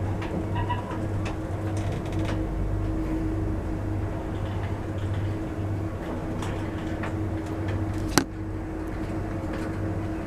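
Lift machinery running with a steady low electrical hum, and one sharp click about eight seconds in.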